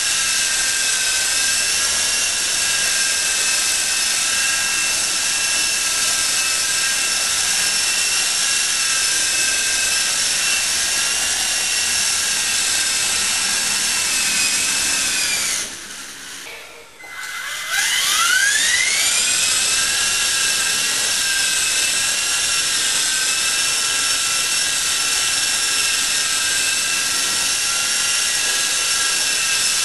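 Walkera Dragonfly 4 electric RC helicopter's motor and rotor whining steadily as it hovers. About sixteen seconds in the whine drops away for a second or two, then rises in pitch as the motor spins back up to hover speed.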